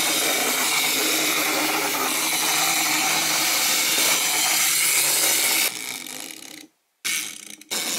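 Clockwork spring motors of small plastic Tayo wind-up toy buses whirring as the buses run across a tabletop. The whir holds steady, then dies away about six seconds in as the spring runs down. It starts up again briefly, twice, near the end.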